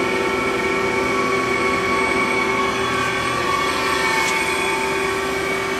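Steady machine hum with several constant whining tones over a hiss, from a powered-up Haas SL-20T CNC lathe.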